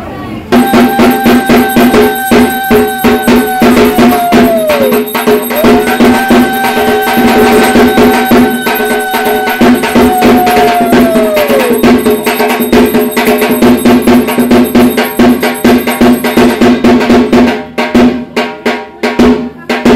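Loud, fast drumming with clanging metal percussion and steady ringing tones, typical of puja music. Two long held tones each sag in pitch as they end. The drumming begins abruptly and thins out near the end.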